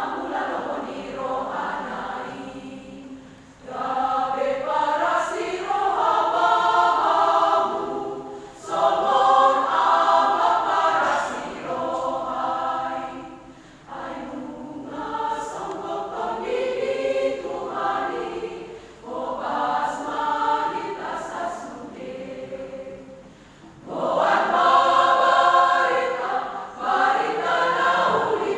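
Choir singing together, in phrases about five seconds long with brief pauses for breath between them.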